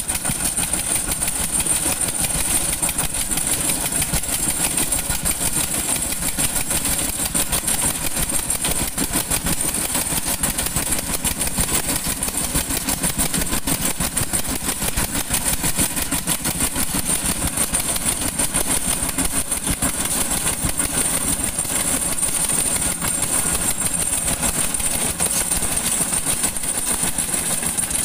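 Engine of a road construction machine running steadily, with a fast, even rattle.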